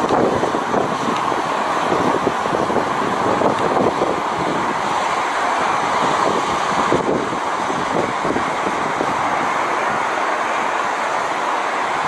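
Gusty wind buffeting the microphone, over the steady rush of surf breaking on a sand beach.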